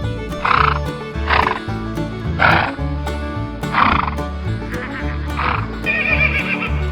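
Horse blowing through its nostrils in five short snorts over the first five seconds or so, then starting a high whinny near the end.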